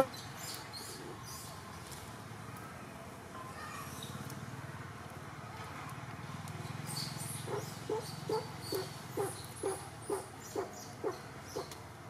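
An animal calling in a series of about ten short, evenly spaced low notes, roughly two a second, starting a little past halfway, over a steady forest background with faint high chirps.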